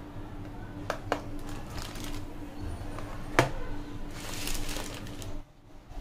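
Items being handled on a kitchen counter: a few sharp clicks and knocks, the loudest about halfway through, then a plastic bag rustling for about a second. The sound cuts off abruptly near the end.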